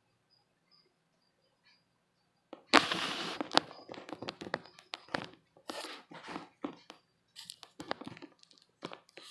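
Camera handling noise: irregular rustling, scraping and sharp knocks as the phone is moved about close to the tarantula, starting about two and a half seconds in.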